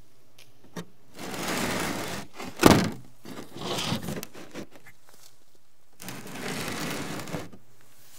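Three stretches of rubbing or scraping noise, with one sharp knock a little after two and a half seconds in, the loudest sound.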